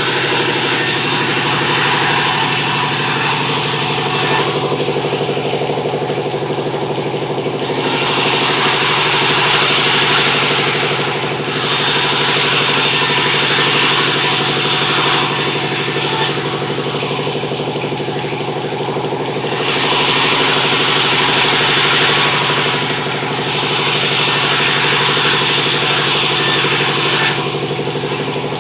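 Sawmill cutting sengon wood: the machine's drive runs with a steady hum while a loud hiss from the saw comes and goes, dropping away briefly about five times.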